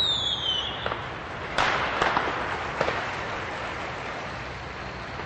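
Fireworks sound effect: a whistle falling in pitch, then a steady crackling hiss with a few sharp pops.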